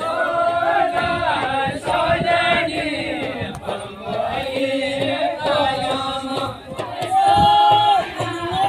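Men and women singing a Kumaoni jhoda-chachari folk song together in chorus, in long held phrases, with a drum beating along underneath.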